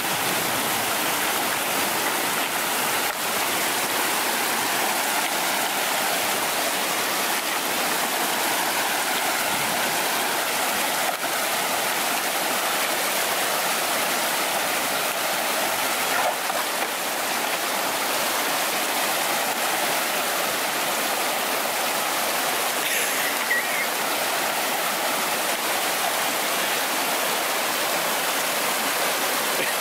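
Shallow mountain brook rushing over rocks, a steady, unbroken rush of water close by.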